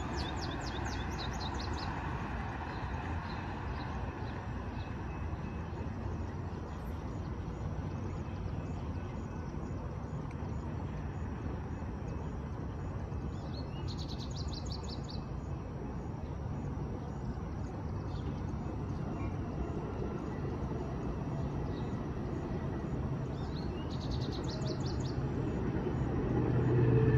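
Street ambience: a steady hum of traffic, broken three times by a small bird's quick trill of chirps. Near the end a low vehicle engine hum swells and grows louder.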